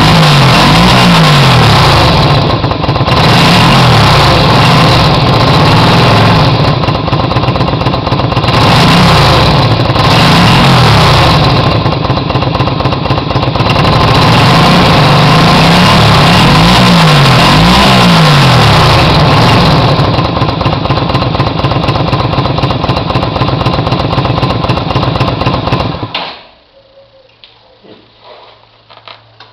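Yamaha XVS125 Drag Star's small V-twin engine revved over and over in quick blips, rising and falling in pitch. It then runs steadily for a few seconds before cutting off suddenly near the end.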